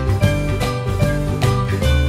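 Upbeat background music with a steady beat and bright jingling tones.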